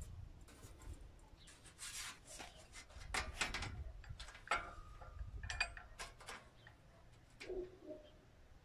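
Light clicks, scrapes and rustles of sheet metal and a metal strip being handled and set in a bench vise, with a couple of brief ringing metallic notes.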